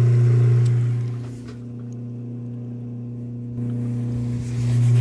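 Freshly rewired hot tub pump motor running with a steady electric hum. It drops in level for a couple of seconds in the middle and comes back up near the end. The technician suspects the pump is airlocked.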